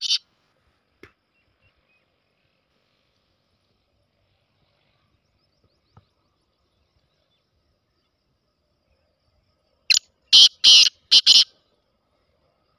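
Black francolin calling: a single loud, harsh phrase of about six scratchy notes in quick succession, lasting about a second and a half, near the end.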